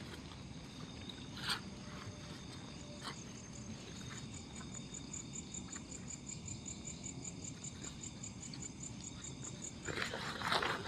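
Night-time insect chorus: several steady high-pitched trills, with a pulsing chirp joining about four seconds in, a few pulses a second. A few soft rustles and clicks of camping gear being handled, the largest near the end.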